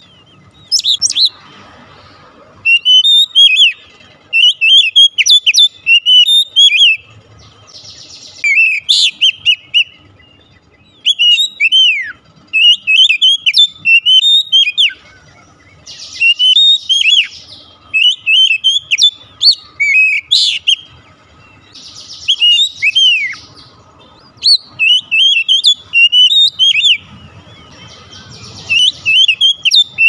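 Oriental magpie-robin (kacer) singing loudly, in bursts of fast, varied whistled notes that slide up and down in pitch. Each burst lasts from a second to a few seconds, with short pauses between.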